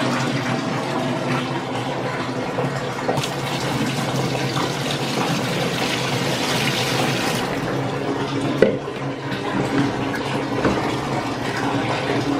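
Water running from a tap into a bucket, filling it. The rush of water grows louder for a few seconds midway, then drops suddenly, with a short knock soon after.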